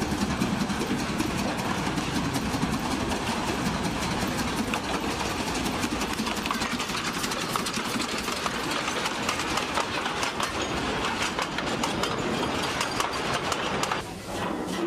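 Steam locomotive and its coaches passing close by: a dense, steady rush of noise laced with many quick clicks of wheels over the rails. It breaks off suddenly near the end.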